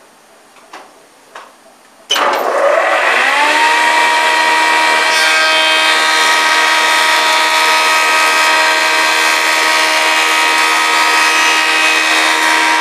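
Surface planer with a four-knife cutter block switched on about two seconds in, its pitch rising for about a second as the block comes up to speed (4,200 rpm), then running steadily with a loud, even whine. A few light clicks come before it starts.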